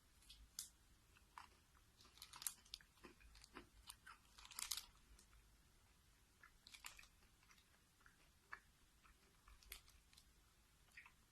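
Faint chewing and crunching of a Nestlé Choquito chocolate bar: scattered soft crunches, the strongest cluster about four and a half seconds in.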